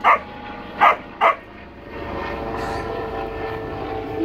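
Dog barking, three short sharp barks in the first second and a half, followed by a steady engine drone in the background.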